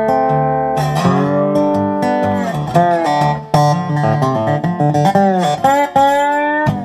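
Spider-cone resonator guitar with a mahogany body, fingerpicked: a steady low bass line under a blues melody whose notes often glide up and down in pitch.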